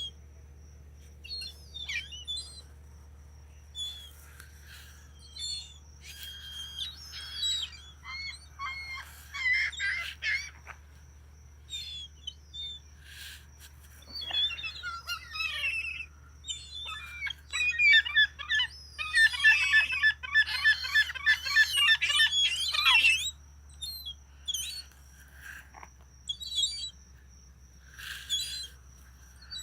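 A flock of seagulls calling: many short cries throughout, thickening into a burst of overlapping calls about two-thirds of the way through.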